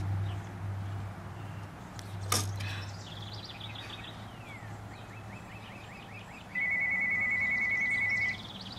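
Telephone ringing: one electronic trilling ring lasting nearly two seconds, starting about six and a half seconds in. A sharp click comes about two seconds in.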